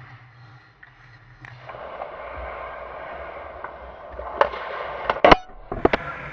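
Ice hockey play: a steady scraping hiss of skates on ice, with a few sharp clacks of stick and puck in the second half, the loudest just past the middle.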